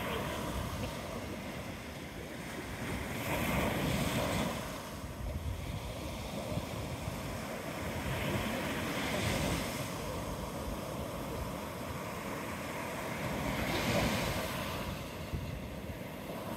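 Ocean surf breaking on the beach, the wash swelling up about every five seconds, with wind buffeting the microphone.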